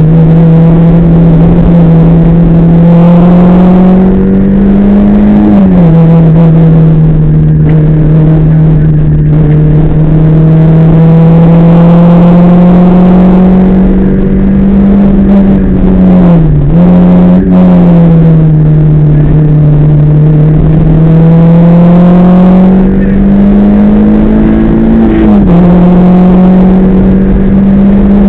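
Rally car engine heard loud from inside the cabin, pulling hard at high revs on a stage. Its pitch climbs slowly and drops sharply at upshifts about 5 and 25 seconds in, with a brief dip off the throttle and a quick recovery around the middle.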